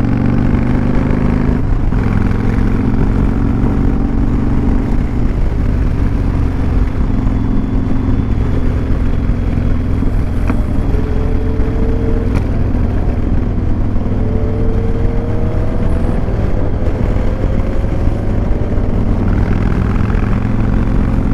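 Cruiser motorcycle engine running steadily under way, heard from the rider's seat, its pitch rising slowly a few times as the throttle is rolled on through the curves.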